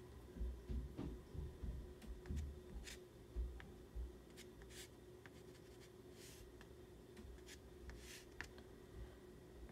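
Pastel stick scratching and rubbing across paper in short strokes, with soft low knocks through the first few seconds.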